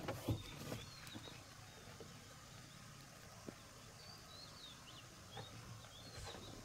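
Faint outdoor ambience with short, high, sliding chirps of small birds calling on and off, and a few soft knocks near the start and in the middle.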